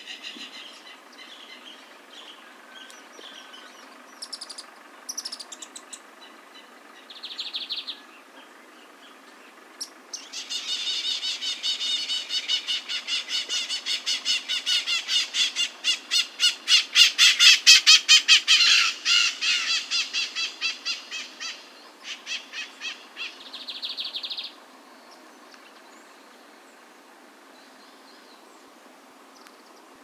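Lined seedeater (Sporophila lineola) singing: a few short high phrases, then a long fast chattering run of rapidly repeated notes that swells louder and stops about three quarters of the way through, followed by a few more short phrases.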